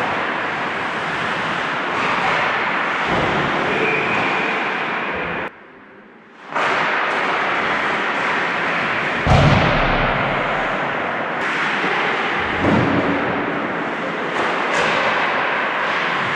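Ice hockey play: steady scraping of skates on ice with sticks and puck clacking, and a heavy thud about nine seconds in. The sound drops away sharply for about a second around six seconds in.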